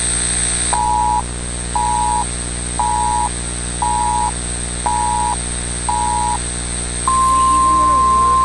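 Emergency Alert System-style alert tones: a hiss of static that cuts off under a second in, then six short two-tone beeps about a second apart, then a long steady single alarm tone starting about seven seconds in. A steady electrical hum and a high whine run underneath.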